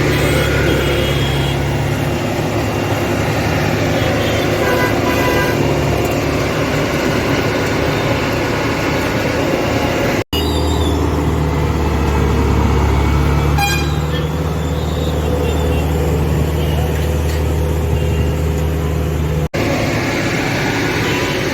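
Heavy diesel engines of road-building machines running steadily, with vehicle horns tooting briefly now and then. The sound drops out abruptly twice where clips are joined.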